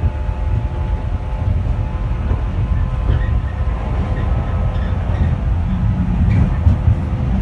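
Inside a moving electric commuter train: a steady, loud low rumble of the wheels on the track, with a faint steady hum above it.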